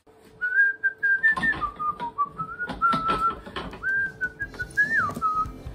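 A person whistling a tune, one clear wandering melody with short breaks between phrases, over light knocks and clicks of a shoe being handled at the workbench and a faint steady hum.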